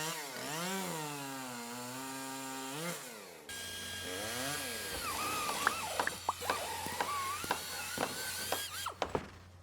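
Two-stroke chainsaw engine revving up and down several times. About three and a half seconds in, the sound changes abruptly to a steady high whine with one more rev and a run of sharp knocks and clicks.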